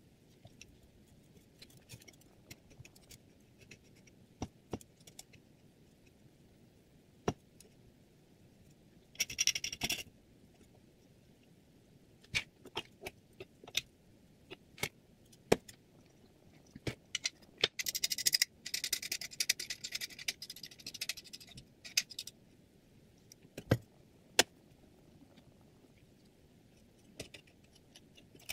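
Small metal clicks and clinks as a Hapstone T1 guided knife sharpener's clamp and guide rod are handled and adjusted, with an open-end wrench on the clamp nuts. There are two stretches of rattling metal-on-metal scraping, a short one about a third of the way in and a longer one about two-thirds of the way in.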